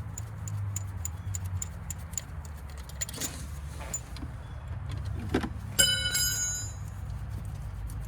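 2016 Hyundai Sonata engine running with a steady low hum. A fast, light ticking of about four ticks a second runs over it for the first couple of seconds. About six seconds in there is a brief metallic ring.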